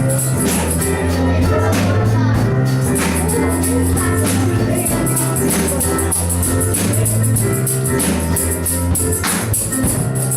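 Church gospel music from a band: steady bass and sustained keyboard chords with a drum beat and a tambourine shaken in rhythm, and some singing.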